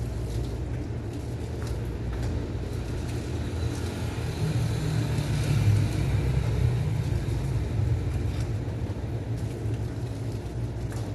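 A steady low rumble that swells for a few seconds in the middle, with a few faint clicks.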